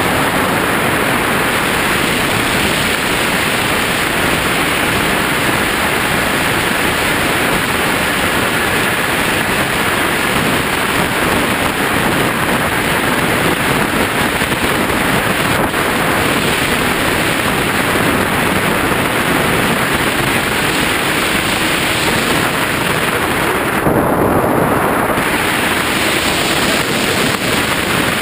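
Steady rush of air over the onboard camera's microphone on a radio-controlled flying wing in flight, with a faint steady whine from its pusher propeller underneath. Near the end the hiss turns duller for about a second as the plane banks.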